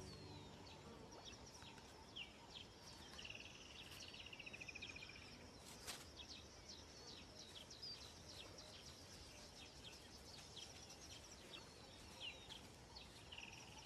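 Faint wild bush ambience: scattered high bird chirps and calls, with a short pulsing trill that falls slightly in pitch, heard about three seconds in and again near the end.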